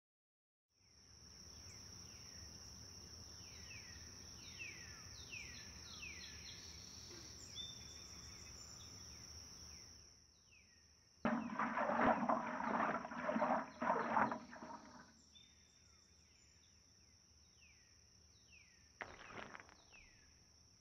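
Outdoor ambience: birds giving repeated short downward chirps over a steady high-pitched insect drone. A loud rushing noise lasts about four seconds midway, and a short rush near the end comes as soapy water is squeezed from a wash mitt into a bucket.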